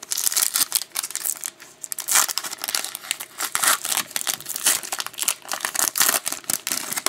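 Foil wrapper of a trading-card pack being torn open and crinkled by hand: a dense, continuous run of sharp crackles.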